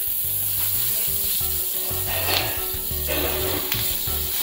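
Hot iron sizzler plate sizzling steadily as ice cubes melt on it, a continuous hiss that swells briefly a couple of times.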